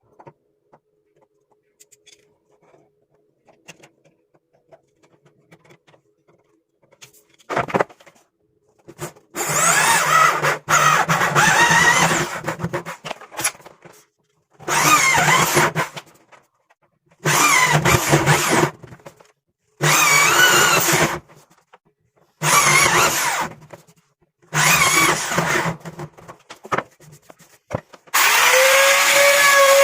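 A handheld power tool, most likely a drill, working wood in a run of short bursts of a second or two, then running steadily near the end. Before it starts there are only faint handling ticks.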